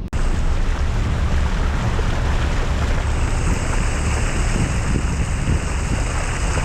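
Car driving along a flooded road: a steady, loud rush of tyres through standing water mixed with wind noise on the microphone, with a deep rumble underneath. It starts abruptly just after a brief drop-out.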